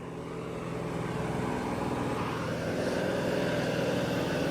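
Heavy diesel engine running steadily, getting slowly a little louder.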